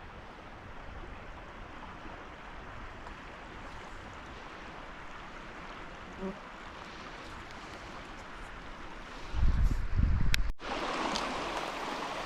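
Creek water running with a steady rushing hiss. About nine seconds in come a few loud low thumps, then the sound drops out for an instant and the water is louder afterwards.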